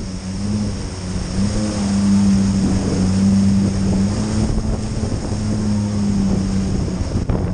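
Jet ski engine running at a steady cruising speed, its low hum wavering slightly in pitch, with wind buffeting the microphone.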